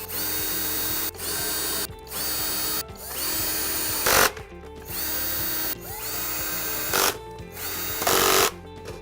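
Power drill-driver driving screws into the cleaner's body in about seven short runs of motor whine, each under a second long. A few runs end louder as the screw is driven home.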